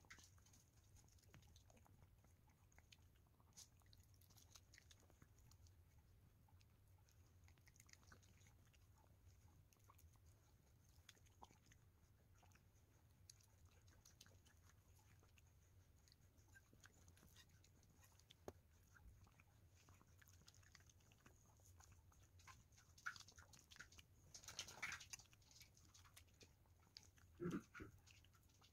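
A small dog eating soft cake: faint, scattered licking and chewing smacks, with a few louder bursts of chewing near the end.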